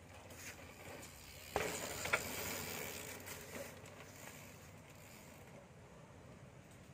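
Mountain bike rolling past on a dirt trail: tyre noise on the dirt that rises suddenly about a second and a half in, with a sharp click soon after, then fades as the bike rides away.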